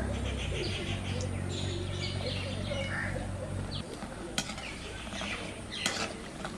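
Chhana dough pieces deep-frying in bubbling oil in an iron wok, turned with a wire-mesh strainer that clicks against the pan a couple of times in the second half, with birds chirping.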